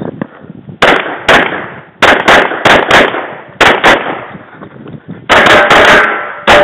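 A Glock 24 pistol in .40 S&W firing about a dozen shots in quick pairs and short strings, with a longer pause before the last burst near the end.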